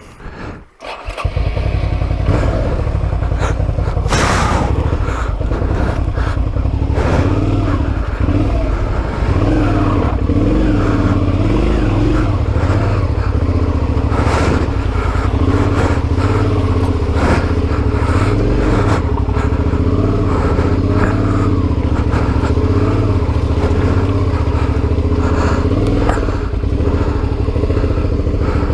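Adventure motorcycle engine running, its note rising and falling with the throttle, cutting in loudly about a second in. Now and then there are sharp knocks and clatters from the bike working over creek rocks.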